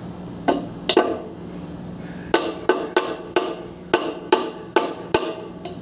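Metal tool striking the split AC outdoor fan motor as the shaft's retaining lock is worked loose, giving sharp ringing metallic knocks. There are two, then a quick run of about a dozen at roughly three a second.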